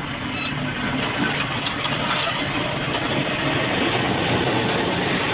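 Excavator engine working, a dense steady mechanical noise that gets louder about a second in, with a few light clicks and clanks.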